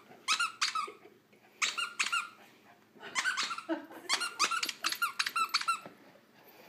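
A rubber squeaky toy squeaking in a terrier's jaws as he bites down on it while trying to bark: two quick pairs of high squeaks, then a faster run of about ten more in the second half.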